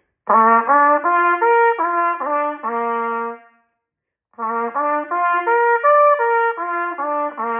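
Trumpet playing a C major arpeggio up and back down (written C, E, G, C, G, E, C) in clear, separate notes, twice, with a short pause between the two runs.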